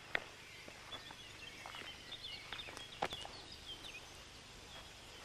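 Quiet outdoor background with faint bird chirps and a few sharp taps about a second apart or more.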